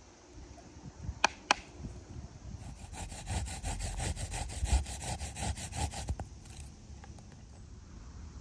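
A garlic clove rubbed quickly back and forth on a small hand grater, a run of rasping strokes about five or six a second for several seconds. Two sharp clicks come a little before it.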